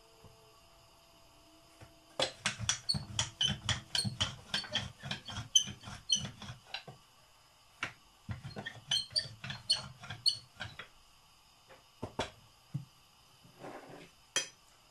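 Wooden rolling pin rolling out paratha dough on a wooden worktop: two runs of fast, rhythmic knocks and clicks, about five a second, then a few separate sharp clicks near the end.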